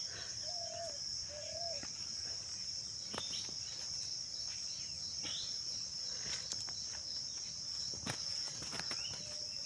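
Steady, high-pitched drone of an insect chorus, with a few scattered clicks and knocks.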